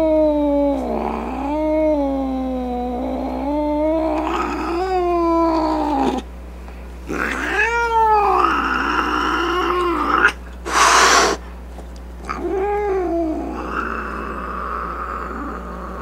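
Grumpy cat yowling in long, wavering drawn-out moans, then in shorter rising-and-falling calls broken by rough, noisy stretches, with a short loud burst of noise about eleven seconds in.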